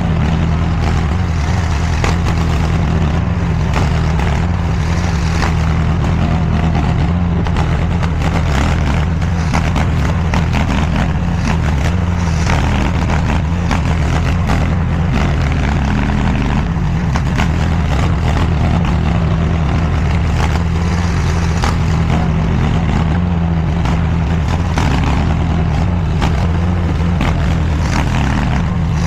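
DIGGIT SCL850 stand-behind mini skid steer's engine running steadily at working speed, with many short clicks and knocks over it.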